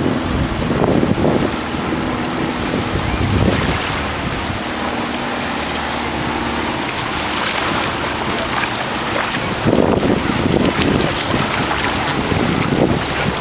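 Ocean surf washing and splashing over a rock seawall, with wind buffeting the microphone. The wash swells louder several times, about a second in, a third of the way through, and twice in the last few seconds.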